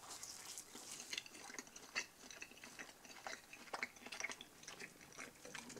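Faint close-up chewing of a bite of soft pizza crust: many small wet clicks and crackles from the mouth.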